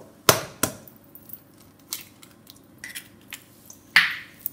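An egg tapped twice in quick succession against the rim of a stainless steel mixing bowl to crack it. A few light knocks follow, then a louder knock with a brief ring from the bowl near the end.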